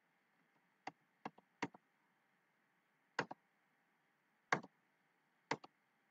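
A computer mouse clicking about six times over a few seconds, several clicks coming in quick pairs, over faint steady hiss.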